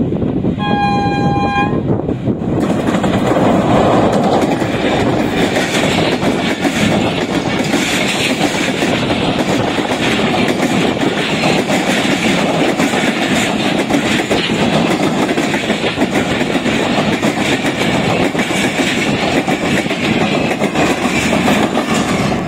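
An HGMU-30 diesel locomotive sounds its horn once, for about a second, near the start as it leads a passenger express past. Then come the steady rumble and rattle of the train's wheels on the rails as the coaches go by close at hand.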